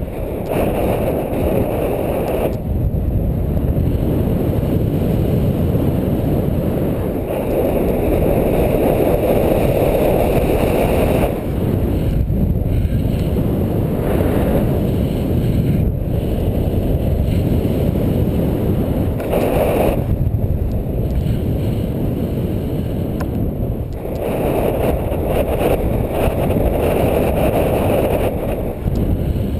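Airflow buffeting the microphone of a camera on a paraglider in flight: a loud, steady, low rush with no tones that swells and eases every few seconds.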